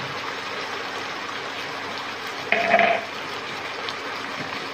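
Minced pork with curry paste and freshly added sauce sizzling steadily in a hot nonstick wok. There is one brief louder stir or scrape of the spatula about two and a half seconds in.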